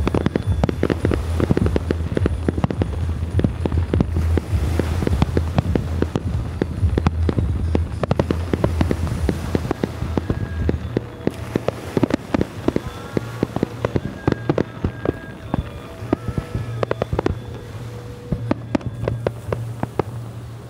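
Aerial fireworks display: a rapid, dense run of bangs and crackling bursts that keeps going without a break.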